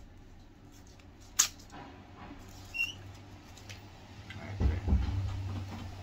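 A GoPro HERO10 camera being switched on and handled: a sharp click about a second and a half in, a short high beep near three seconds, then a few dull bumps near five seconds.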